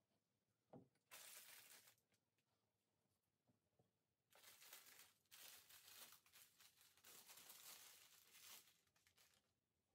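Faint rustling and crinkling as material is handled, in a short stretch about a second in and a longer one from about four to nine seconds, with a soft knock just before the first.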